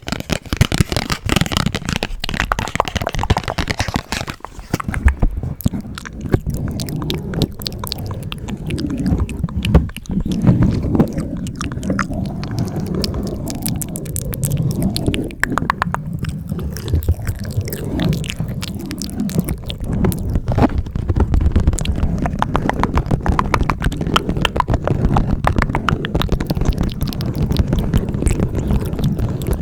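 Fast, close-miked ASMR tapping on a Hello Kitty Uno card game set, a dense run of quick clicks, mixed with mouth sounds. Low-pitched noise sits underneath from about five seconds in.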